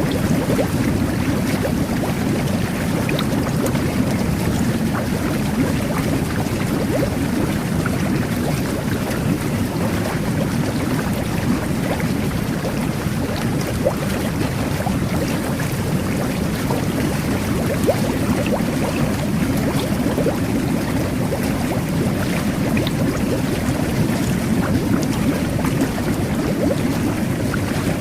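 Jet bath (whirlpool bath) jets churning the water: a steady, low rushing rumble sprinkled with small scattered clicks.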